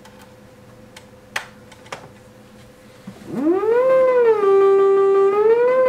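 Macchiato mini synthesizer voicing the Altura MIDI theremin through a loudspeaker. After a couple of faint clicks, a rich synth tone comes in about three seconds in, slides up in pitch, drops to a lower held note, then slides back up near the end.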